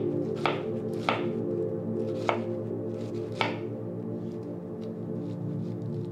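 Chef's knife slicing through pineapple flesh and knocking on a wooden cutting board, four sharp strokes at uneven intervals in the first three and a half seconds, over steady background music.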